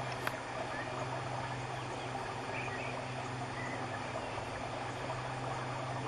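Steady rushing of a waterfall, with a low steady hum underneath and one faint knock just after the start.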